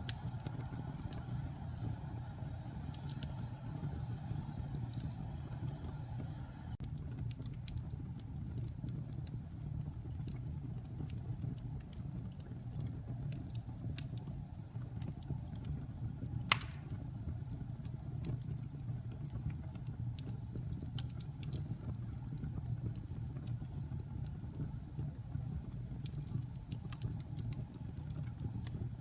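Fire burning in a fireplace with a steady low rumble and scattered crackles, and one sharp pop a little past halfway.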